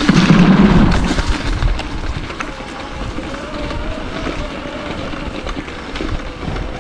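Mountain bike riding down a dirt trail: rushing tyre and wind noise with many clicks and rattles from the bike over bumps. It is loudest in the first second, then quieter.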